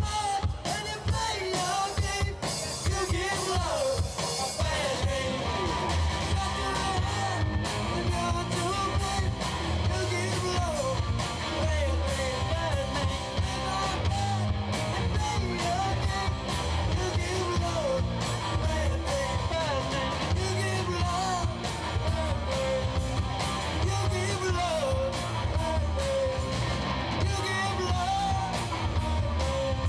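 Live rock band playing: drum kit, bass guitar and electric guitar keeping a steady beat, with a lead vocal over them.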